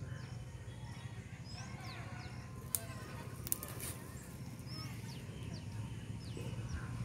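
Faint outdoor ambience: small birds chirping here and there over a low steady hum, with two sharp clicks near the middle.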